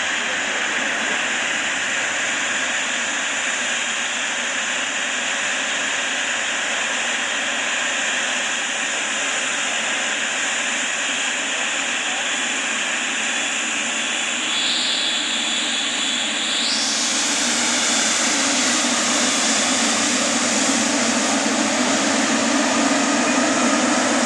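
Jet engines of an Emirates Boeing 777-300ER, GE90 turbofans, running steadily. About two-thirds of the way through, a high whine shifts upward and the engine noise grows gradually louder.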